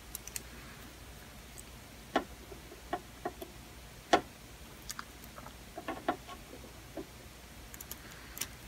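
Scattered light clicks and taps, irregular and a second or so apart, from a soldering iron tip and fingers working a capacitor's leads into a small circuit board. The sharpest tap comes about four seconds in.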